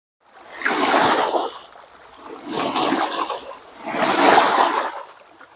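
Small wind-driven waves splashing against the dam's shore, in three surges about a second and a half apart, each swelling and falling away.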